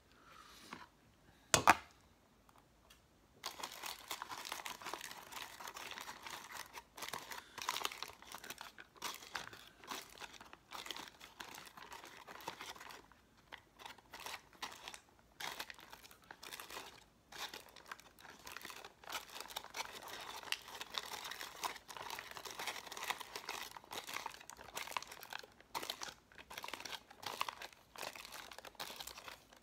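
A single sharp click about two seconds in, then continuous crinkling and rustling of a plastic MRE pudding pouch as a spoon stirs in it, with a few short pauses.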